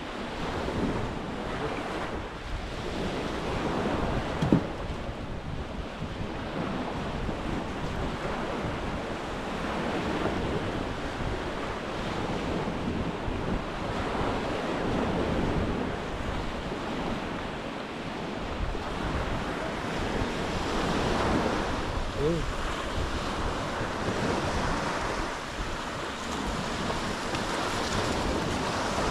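Surf breaking on the beach, swelling and easing every few seconds, with wind buffeting the microphone. A single sharp knock about four and a half seconds in.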